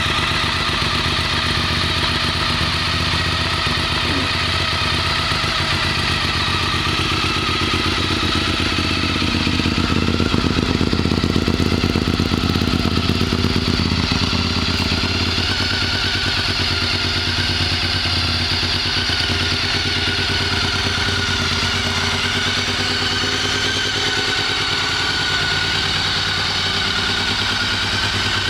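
Honda RC51's 999 cc V-twin engine running steadily at idle. It gets a little louder for a few seconds about a third of the way in, then settles back.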